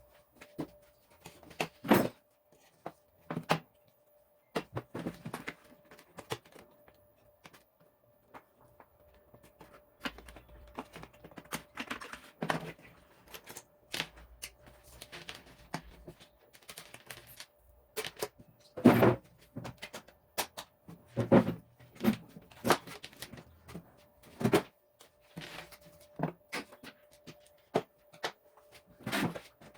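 Irregular clicks, taps and knocks of plastic and metal parts being handled during work on a Samsung microwave oven's touch pad and control panel, over a faint steady hum.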